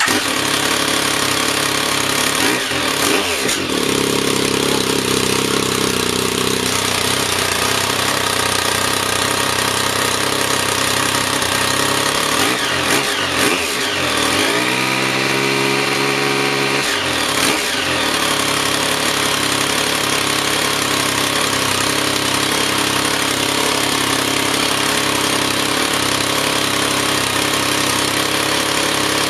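A vehicle's engine idling through its exhaust. It is revved briefly about three seconds in, then revved again near the middle and held at a higher pitch for a couple of seconds before dropping back to idle.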